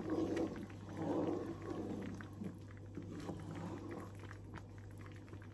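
Wooden spoon stirring and scraping thick, bubbling ube halaya (mashed purple yam cooked with milk and butter) in a nonstick pan, as the mixture thickens near the end of cooking. Two louder wet strokes come in the first second and a half, then softer stirring, over a steady low hum.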